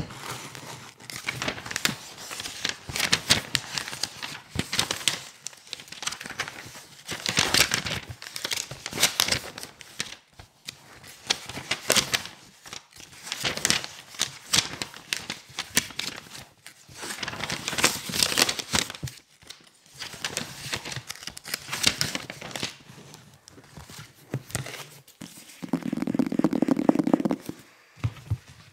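Pages of a paperback book being flipped and turned hard and fast, crisp papery rustles and snaps coming in bursts every second or two. Near the end, a steadier buzzing flutter of pages riffled fast lasts about a second and a half.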